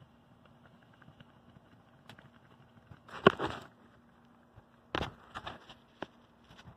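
A few sudden knocks and rustles over a faint steady background: one loud, short one about three seconds in, then a quick run of sharper knocks around five to six seconds.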